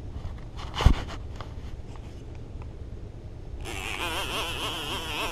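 Abu Garcia 6500 baitcasting reel's bait clicker buzzing as line is pulled off the spool, its pitch wavering with the pull, the sign of a fish running with the bait. It starts about three and a half seconds in, after one sharp thump just under a second in.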